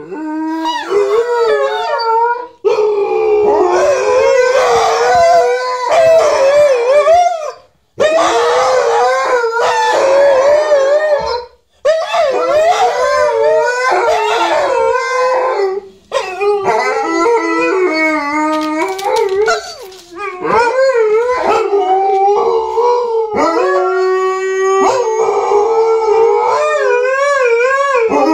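Two Alaskan malamutes howling together in long, wavering howls, their voices overlapping, with short breaks for breath about every four seconds.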